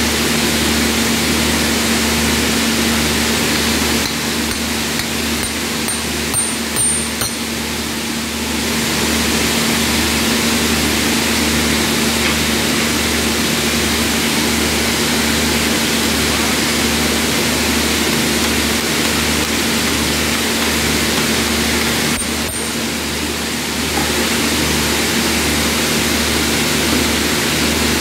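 Heavy factory machinery running with a steady loud drone, a constant hum and a low throb that pulses about once a second. A few light metallic clicks come about five to seven seconds in.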